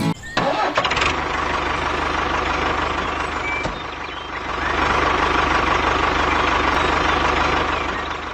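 A small engine running with a fast, even chug, easing off a little around four seconds in and then picking up again.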